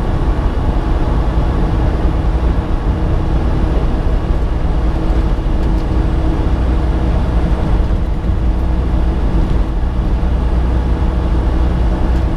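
Semi truck cruising at highway speed, heard from inside the cab: a steady low engine drone under tyre and road noise.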